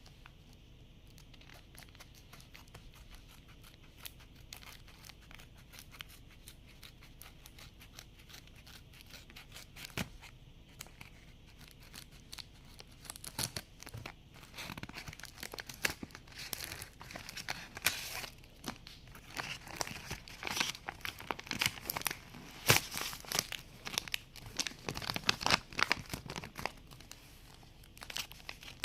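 Blind bag packaging being handled, crinkled and torn open by hand: soft, sparse rustles at first, then from about halfway, busier crackly crinkling and tearing that gets louder.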